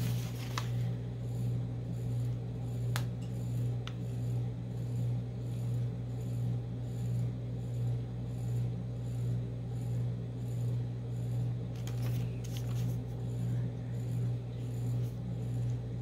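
A steady low machine hum that swells and fades a little more than once a second, with a couple of light taps and a brief paper rustle from pen-and-paper work.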